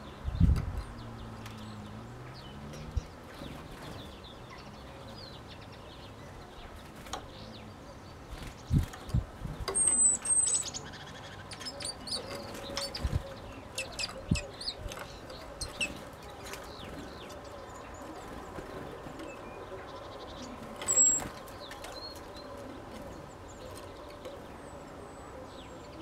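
Great tits coming and going at a wooden bird feeder: wing flutters and scattered sharp knocks as birds land and move on the wood, with a few short, high, thin calls. The activity bunches about ten seconds in and again near the end.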